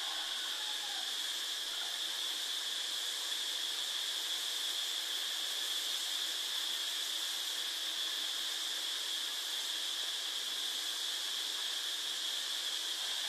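Steady hiss with a constant high-pitched whine, unchanging throughout.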